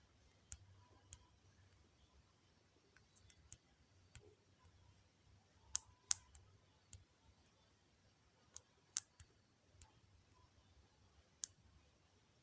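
Fingertip taps and clicks on a phone touchscreen, about a dozen short, sharp ticks at irregular intervals, the loudest two close together about six seconds in, over faint room tone.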